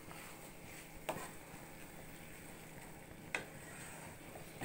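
Wooden spatula stirring cracked-wheat upma in a non-stick pan, faintly, with sharp taps of the spatula against the pan about a second in and again after three seconds.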